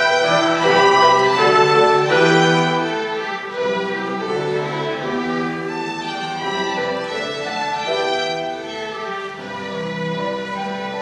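Youth string ensemble of violins and cellos playing held notes together, growing a little softer about three seconds in.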